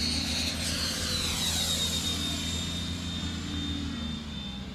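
Electric ducted fan of the HSD Tornado 75 RC jet whining in flight, a high whine that falls slowly in pitch as the jet passes, easing off slightly near the end.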